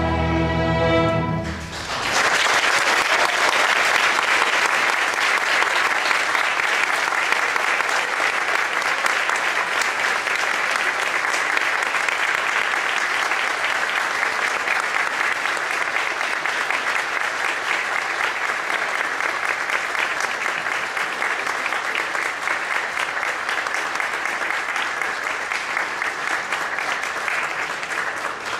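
An orchestra's strings hold a final chord that is cut off about two seconds in. Then an audience applauds steadily, fading near the end.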